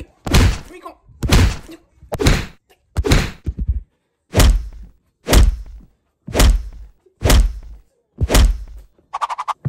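A fist pounding down close to the phone's microphone: nine heavy thumps about once a second, each with a deep thud.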